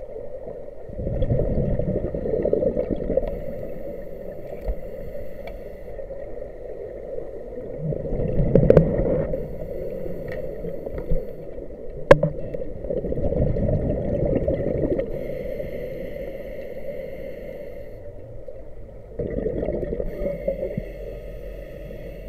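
A scuba diver breathing through a regulator underwater: exhaled bubbles gurgle out in four bursts a few seconds apart. A single sharp click comes about twelve seconds in.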